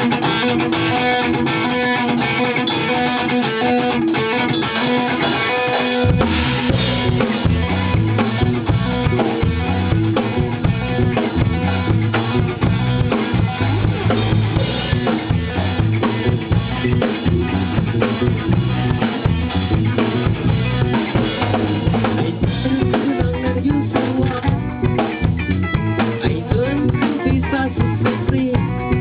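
A band playing an instrumental stretch of a rock song: guitar at first, then drum kit and bass guitar come in about six seconds in and carry a steady beat.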